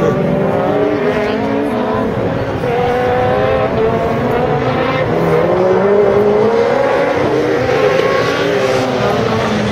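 Peugeot rally car's engine revving hard under acceleration, its pitch climbing and dropping repeatedly with the gear changes.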